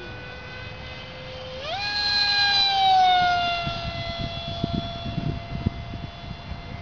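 Radio-controlled Tiger model airplane's motor droning overhead at a steady pitch, throttled up sharply about one and a half seconds in. The pitch then eases down a little as the sound peaks in loudness and fades back.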